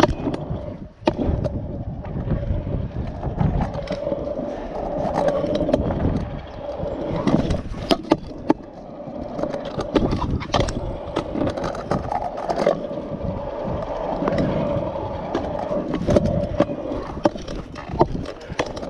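Stunt scooter rolling over concrete with a steady wheel hum. Many sharp clacks and scrapes come from the deck and wheels striking the ground.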